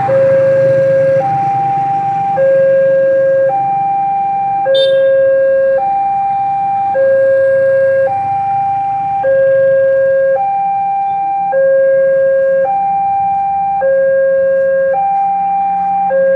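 Railway level crossing warning alarm sounding a two-tone electronic signal, a low tone and a higher tone alternating evenly about every 1.2 s. It warns that a train is coming, with the barrier lowered.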